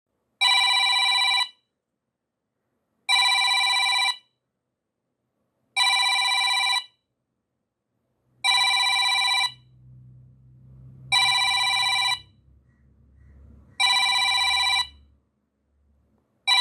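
Timer alarm ringing in bursts about a second long, repeating roughly every two and a half to three seconds, like a telephone bell: the ten-minute countdown has run out.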